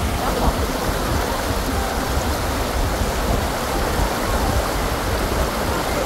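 Mountain stream flowing over rocks with a fairly strong current: a steady rushing of water.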